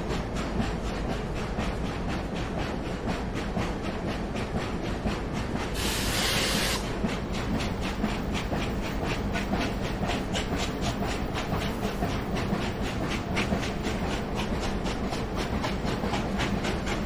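Steam train running at speed with a steady, fast, regular beat. A burst of steam hiss lasting about a second comes about six seconds in.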